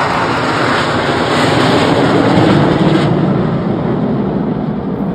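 Jet engine noise of the Surya Kiran team's Hawk jets flying past in formation: a broad rushing sound that swells about two seconds in, then eases off.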